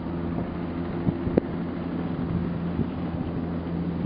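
Bell 206B JetRanger II helicopter running on the ground before takeoff: a steady hum from its turboshaft engine and turning rotor. A sharp click comes about a second and a half in.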